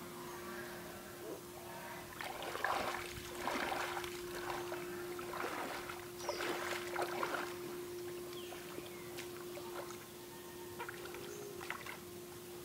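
Shallow water sloshing and splashing in irregular bursts as a man wades and handles a hooped net eel trap in the water, over a steady faint hum.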